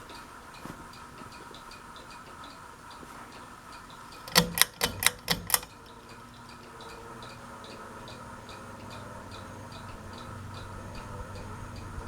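Hunter Coastal Breeze Plus ceiling fan running: a steady motor hum with a light, regular tick two or three times a second. About four and a half seconds in comes a quick run of five or six sharp clicks.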